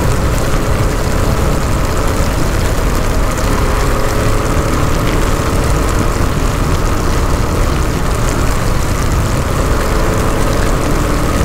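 Motorcycle running at a steady cruising speed, its engine a faint steady hum under a dense, even rush of wind noise on the microphone.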